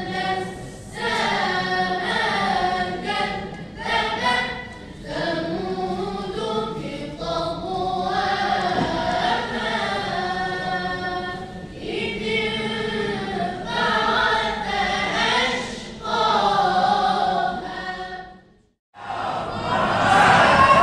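Boys' choir singing in unison, a melodic group recitation of Quranic verses in long swelling phrases with short breaths between them. Near the end the singing cuts off abruptly, and after a brief silence a louder chant starts.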